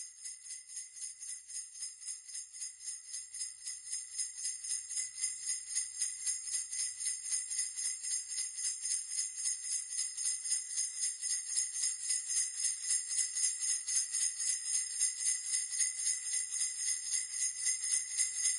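Sleigh bells jingling in a steady, even shaking rhythm, growing gradually louder.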